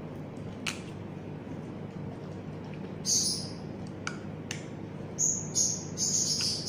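A small plastic drink bottle is twisted open with a few light clicks, then short high squeaky slurps come as it is drunk from, over a steady low hum.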